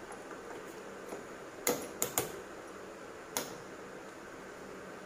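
A metal spoon clinking against a stainless steel mixer jar: three quick clinks close together, then one more a second or so later.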